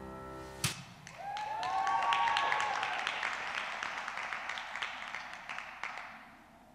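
The last held notes of the dance music stop with a thump under a second in, then an audience claps and cheers, with a few voices calling out at the start of the applause; the clapping dies away over about five seconds.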